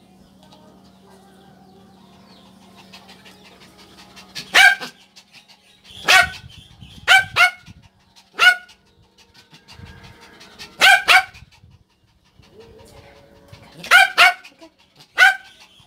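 Small Yorkshire terrier barking in short, sharp, high yaps, about ten in all, singly or in quick pairs, starting about four seconds in.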